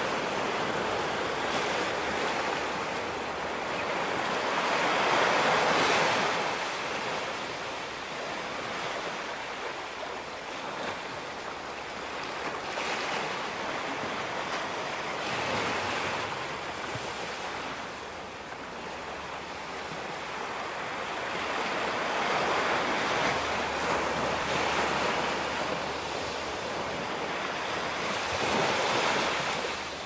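Small Caribbean waves breaking and washing up a sandy beach, the surf rising and falling back as each wave comes in.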